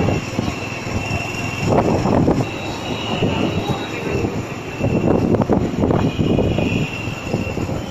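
Road noise from riding a motorcycle or scooter through city traffic: the engine running and wind buffeting the microphone, swelling twice, with a faint high whine coming and going above it.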